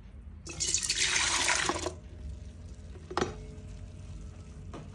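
Warm milk poured into a stainless-steel stand-mixer bowl, a splashing pour of about a second and a half, followed later by two light knocks.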